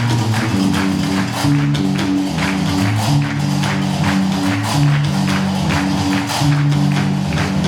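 Gnaoua music: a guembri (sintir) bass lute plays a repeating low riff over the steady, evenly spaced clatter of qraqeb iron castanets.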